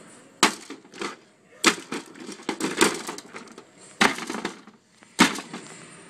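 Plastic wrestling action figures being knocked together and against the toy ring: a string of sharp clacks and knocks, about one a second, with a quick cluster near the middle.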